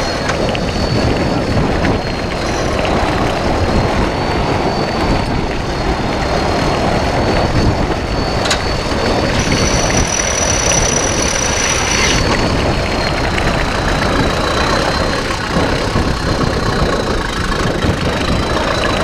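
Off-road trial 4x4's engine running steadily and loudly, with a thin high whine over it and one sharp click about eight and a half seconds in.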